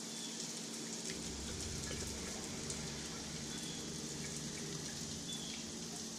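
Steady rain-like patter and trickle of RYDLYME descaler solution being pumped through the outboard's cooling system and draining back into the barrel, with the low steady hum of the circulation pump under it.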